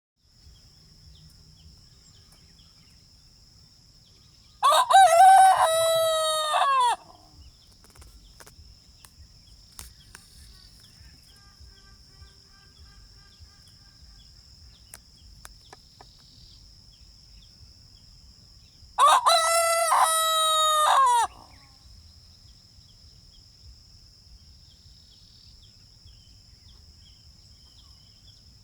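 A rooster crowing twice, each crow a little over two seconds long and about fourteen seconds apart, over a faint steady high-pitched drone.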